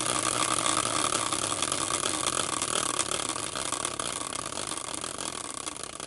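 A homemade prize wheel, a caster wheel on a wooden stand, spinning freely on its axle. It whirs with a fast ticking that slows as the wheel winds down, and the sound fades gradually.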